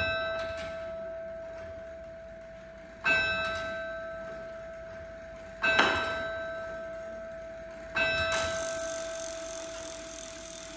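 The Dockyard turret clock's bell striking twelve, four even strokes about three seconds apart, each ringing on and dying away slowly under the next. A steady hiss joins after the last stroke near the end.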